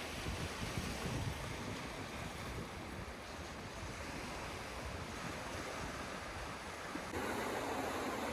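Ocean surf washing on the shore, with wind rumbling on the microphone; the wash gets louder about seven seconds in.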